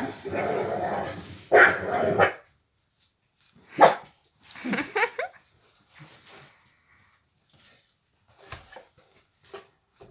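Dog barking and whining: a dense run of barking that stops abruptly about two seconds in, then a few separate barks and a whine that falls in pitch.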